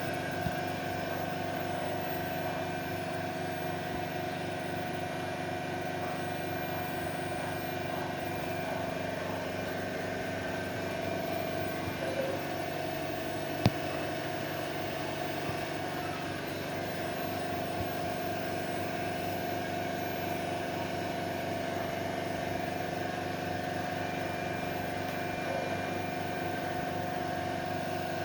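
Dual-station PCB soldering machine running with a steady mechanical hum and several steady tones, with a single sharp click about fourteen seconds in.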